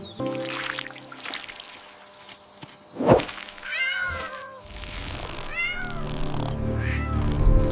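Cat meowing three short times in the second half, each call rising and then falling in pitch. A single sharp thump about three seconds in is the loudest sound.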